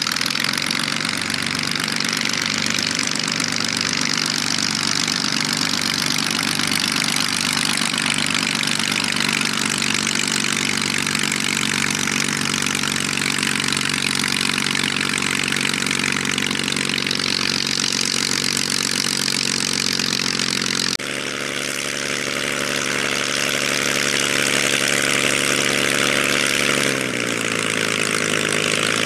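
Zlin Z-326's Walter Minor six-cylinder inverted inline engine running steadily at taxi power, with a sudden change in the sound about two-thirds through. Near the end the engine note drops as the power comes back.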